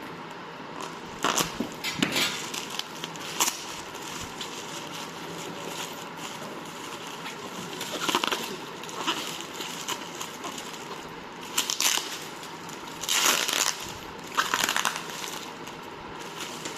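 Packaging being handled: irregular bursts of crinkling and rustling over a steady background hiss.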